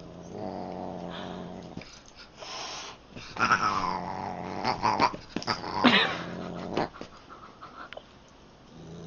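A pet animal vocalising: a steady low rumbling sound for about a second and a half, then a series of short calls a few seconds in, one sliding down in pitch.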